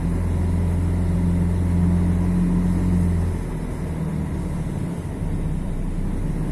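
Mercedes-Benz OM 457 LA inline-six turbo diesel of an O-500MDA articulated bus running under way, a steady deep drone. About three and a half seconds in the deepest part of the drone drops away and the engine runs a little quieter, picking up again near the end.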